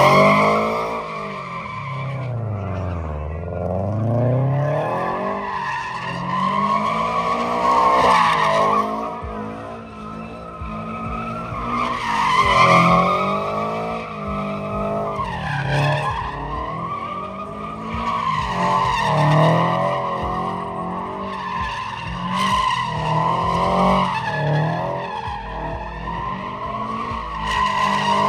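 A car doing donuts: its tyres squeal continuously while the engine revs rise and fall again and again, swelling every few seconds with each loop.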